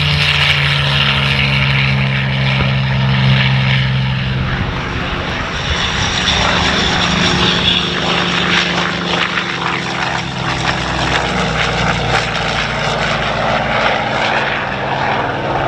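Goodyear FG-1D Corsair's Pratt & Whitney R-2800 eighteen-cylinder radial engine and propeller running steadily in a low pass, the engine note changing about five seconds in as the plane goes by.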